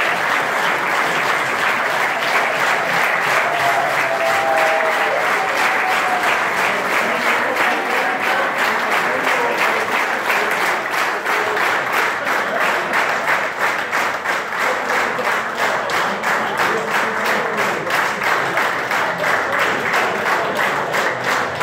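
Wedding guests applauding at length, with the clapping falling into a more regular rhythm in the second half.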